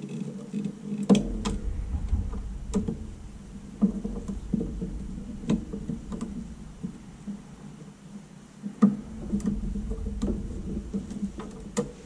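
Gloved hands handling an opened all-in-one computer: scattered clicks and knocks of its plastic shell and metal frame being touched and shifted, over a low rumble.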